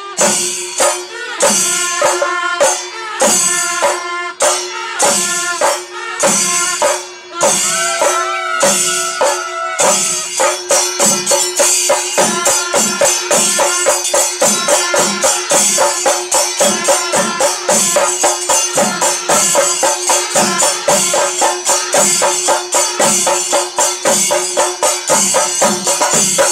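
Kerala chenda drums beaten with sticks together with clashing hand cymbals, a loud ensemble rhythm. About ten seconds in, the beat turns faster and denser and stays even, and a steady held tone runs under it.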